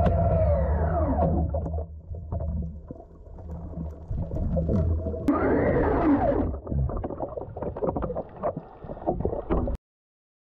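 Handheld underwater scooter's electric motor whine sliding down in pitch and dying away in the first second or so: the scooter stopping after losing its propeller. Then muffled underwater rumble with many small clicks, and about five seconds in a short whine that rises and falls. The sound cuts out abruptly near the end.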